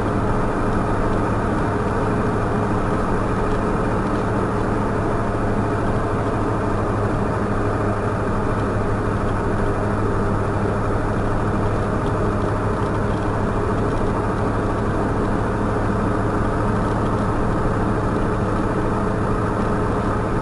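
Truck engine running steadily at cruising speed with road noise, heard from inside the moving cab as one even, unbroken drone.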